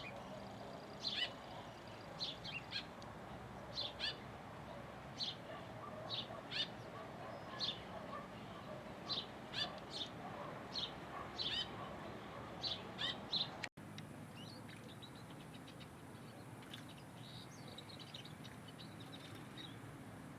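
Small birds chirping: short high chirps, roughly one a second, over a steady background hiss. After a brief cut about two-thirds of the way through, the chirps come fainter and quicker.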